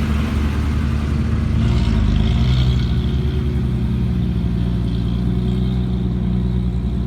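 Heavy diesel engine of a dump truck or excavator running steadily, picking up briefly about two seconds in.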